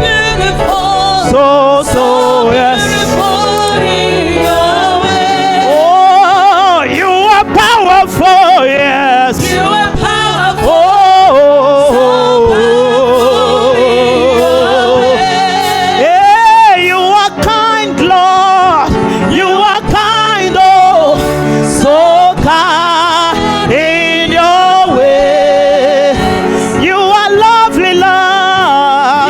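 Gospel worship song: a lead singer's melody, gliding and wavering in pitch, over sustained instrumental backing.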